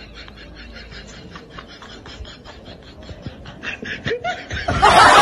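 Laughter: a steady run of quick snickering pulses that grows louder and ends in a loud burst near the end.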